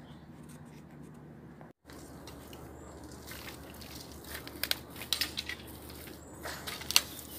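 Dry cut bamboo stems and leaves crackling and crunching underfoot. A run of sharp snaps builds up after a brief break about two seconds in, with the loudest snap near the end.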